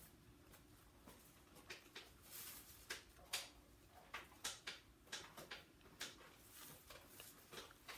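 Faint sounds of eating fried chicken by hand: scattered soft clicks and crackles from the meat being chewed and handled.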